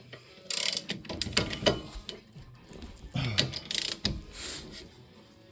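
Hand socket ratchet clicking in short bursts of strokes, with pauses between them.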